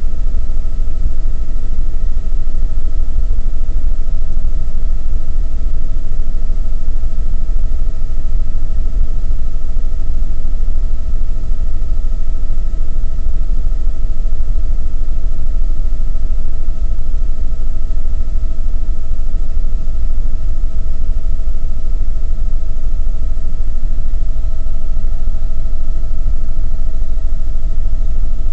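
Helicopter engine and rotor noise heard inside the cabin in flight: a loud, steady low rumble with a constant whine on top.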